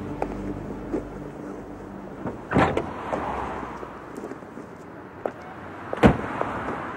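A car door opening with a clunk about two and a half seconds in, then slammed shut near the end with a sharp bang, the loudest sound here.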